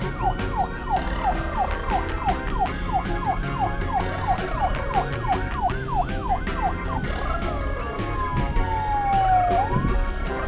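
Cartoon-style siren sound: quick falling whoops repeating about three times a second, then a rise and one long falling glide near the end, over a steady low hum.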